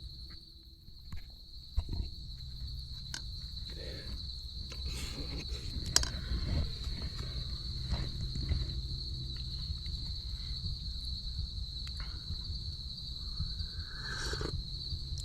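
A steady, high-pitched insect chorus of crickets or cicadas, unbroken throughout, over a low rumble with scattered small clicks and knocks close by.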